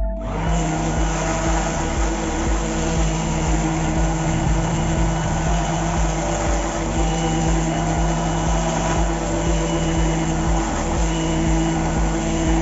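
Battery-powered INGCO CROSLI2001 orbital sander switching on and running steadily with its pad on a hardwood block: an even motor hum under the rasp of sandpaper on wood.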